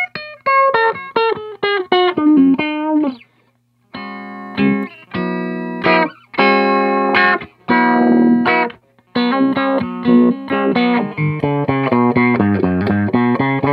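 Electric guitar on its bridge humbucker played through an envelope filter pedal based on the DOD 440, giving an auto-wah-like filtered tone: a falling run of single notes, then fuller chords, then a quicker run of notes.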